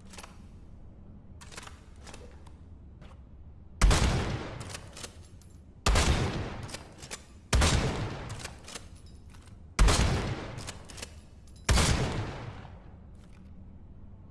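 Five .308 rifle shots, roughly two seconds apart, each sharp crack trailing off in a long echo. Faint light clicks sit between the shots.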